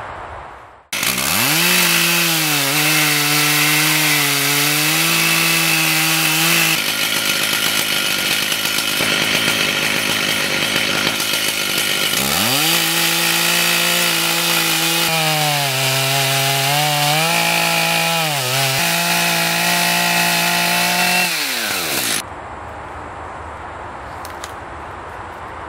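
Chainsaw in a chainsaw mill sawing a slab off an oak stump: the engine revs up and runs at high speed under load, its pitch dipping a few times as it bogs in the cut, then winds down. It starts and stops abruptly, and quieter outdoor background follows for the last few seconds.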